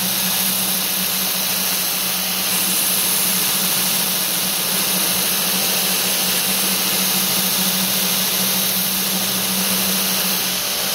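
Belt grinder running steadily at speed, its abrasive belt hissing over a 10-inch contact wheel as a knife blade is hollow-ground, with a constant motor hum underneath.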